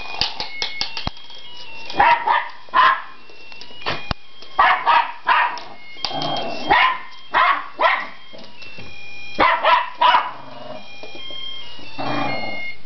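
A dog barks repeatedly in clusters at an electronic dreidel, which plays a beeping electronic tune underneath. The barking is the dog's reaction to a toy she dislikes.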